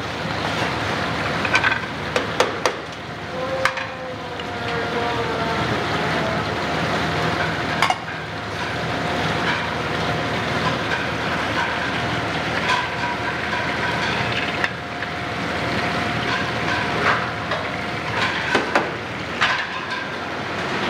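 Steady running of a commercial dish-room conveyor with a faint steady whine that sets in a few seconds in, and sharp clacks every few seconds as ceramic plates and bowls are handled and set down.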